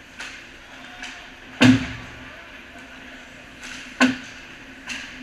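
Ice hockey practice: two loud, sharp cracks of pucks and sticks, about two and a half seconds apart, the first the louder with a low thud and a short ring, with lighter clicks between. A steady low hum runs underneath.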